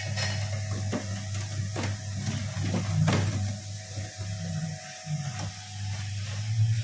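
Horizontal livestock-feed mixer running loaded with about 350 kg of feed: a steady low motor hum as the agitator churns the feed, with a few sharp knocks now and then.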